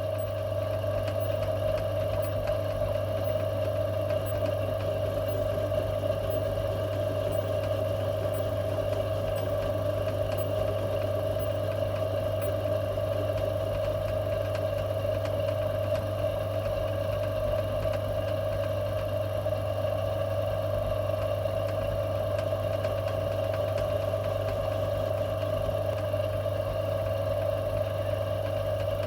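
Metal-turning lathe running steadily with a piece of steel spinning in its chuck: an even motor and drive hum that does not change. The owner thinks it is running slower than it should.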